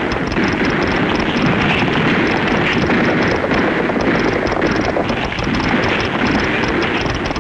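A dense, steady rumbling din of many horses galloping in a cavalry charge, from an old film's sound-effects track.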